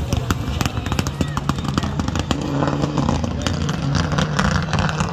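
Rally car engine running as the car drives away on the stage, with many sharp cracks and pops over it.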